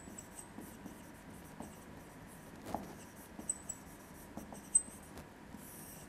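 Marker pen writing on a whiteboard: soft scratching strokes of the tip, with a few short high squeaks as the letters are formed.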